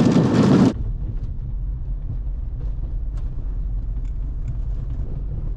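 Low, steady rumble of a Niva driving over a rough, stony dirt road, with faint scattered clicks and rattles. It opens with a brief louder rush of noise that cuts off suddenly.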